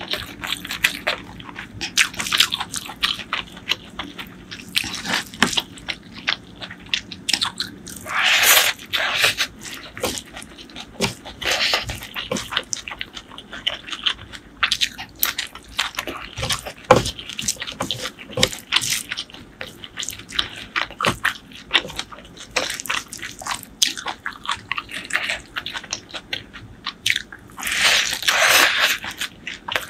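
Close-miked eating by hand: chewing and crunching mouthfuls of rice with a crispy fried topping and curry, with many small wet mouth clicks and smacks. There are two longer, louder crunching stretches, about eight seconds in and near the end.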